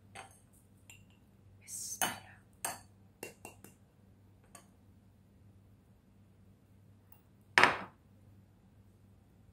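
Glass jar knocking and clinking against a steel mesh strainer as ground spice powder is tipped and tapped out of it: a cluster of short sharp clicks, then one louder knock near the end.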